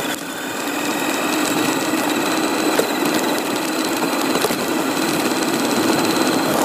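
Electric motor and gears of a radio-controlled car whining at a steady pitch as it drives.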